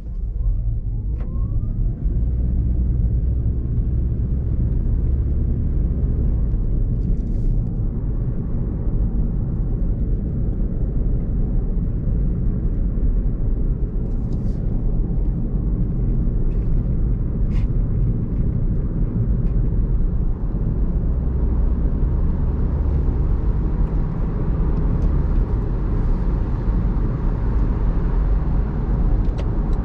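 Car driving on a wet road: a steady low rumble of tyres and engine heard inside the cabin, with a few faint clicks.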